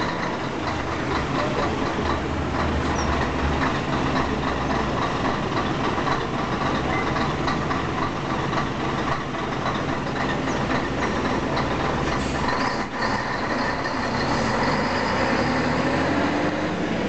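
Scania K113CL coach's 11-litre DSC11 diesel engine running at idle, then rising in pitch near the end as the coach pulls away under load.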